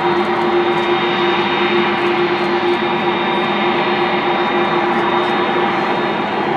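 Airbus A300-600ST Beluga's General Electric CF6-80C2 turbofans running at taxi power: a steady jet whine over a deep, even hum.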